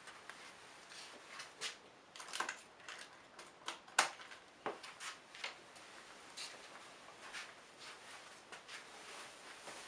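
Faint, irregular clicks and knocks, a few every second, with no engine running.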